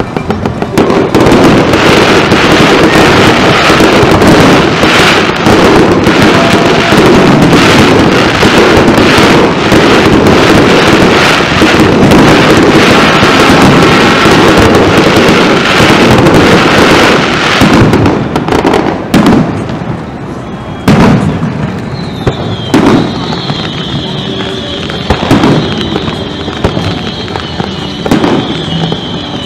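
Aerial fireworks bursting: a dense run of bangs and crackling for most of the first two-thirds, then fewer, separate bangs. Over the last several seconds a steady high-pitched tone sounds along with them.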